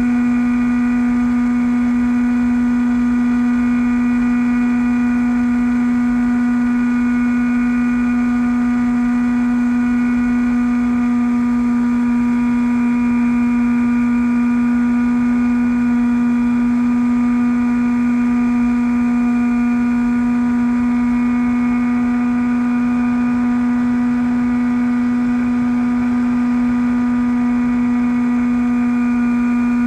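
Bixler v1.1 RC plane's electric pusher motor and propeller running at a constant throttle in flight: a steady drone holding one pitch with overtones, with wind rush underneath.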